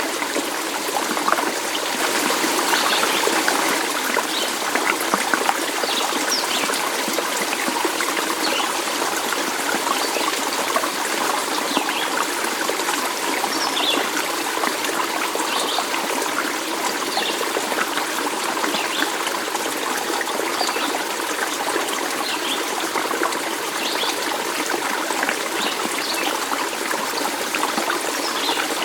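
Water trickling and splashing over stones in a stream, a steady babble with many small gurgles and splashes.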